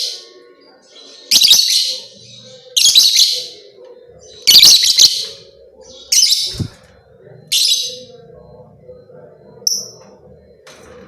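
Lovebird chattering in five loud, harsh bursts about one and a half seconds apart, then a short high chirp near the end: a lovebird in full, active song ('gacor').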